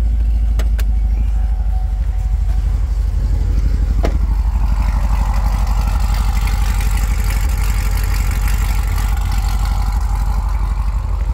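2017 Chevrolet Corvette Grand Sport's 6.2-litre V8 idling steadily through long-tube headers and a 3-inch exhaust, a deep low rumble at the quad tailpipes. A hiss grows over the second half.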